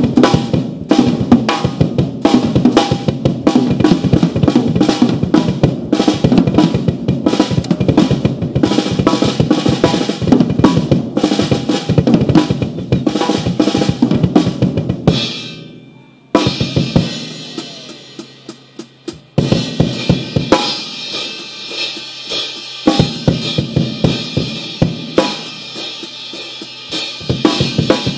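Vintage Slingerland drum kit played freestyle: a dense, fast beat of bass drum, snare and cymbals. About halfway through the playing drops out briefly, a few spaced hits follow, then the beat picks up again with more cymbal.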